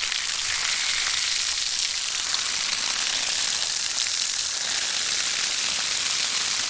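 Water running steadily from an outdoor faucet, a constant hiss.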